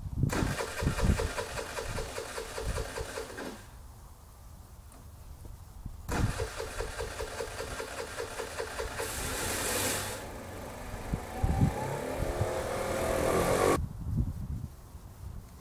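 A motor engine running in two spells, each starting and cutting off abruptly; the second is longer and its pitch shifts near the end.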